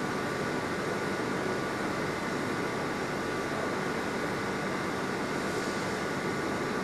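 Steady machine hum with a few faint, high, steady whining tones in it; it does not change.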